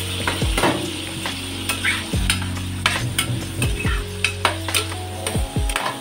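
A utensil stirring food that sizzles in a frying pan, knocking against the pan many times at an uneven pace. Under it runs a steady low hum that stops shortly before the end.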